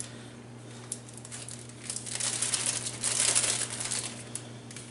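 Paper pouch of chocolate frosting mix crinkling as it is handled and cut open with scissors. The crinkling is faint at first and loudest in the second half.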